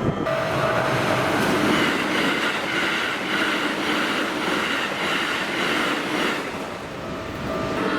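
Keikyu electric train running through a level crossing at high speed, its rush of wheel and running noise coming in suddenly at the start and holding loud throughout. A level-crossing warning bell rings in a regular rhythm alongside it.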